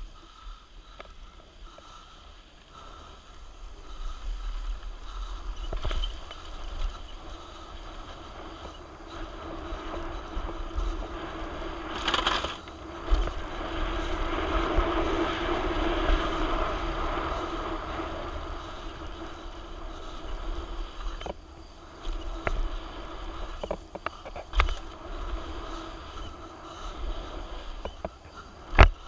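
Mountain bike riding fast down a dirt trail: wind buffeting the microphone, tyres rolling over loose dirt, and the bike rattling, with sharp knocks from bumps, the loudest near the end.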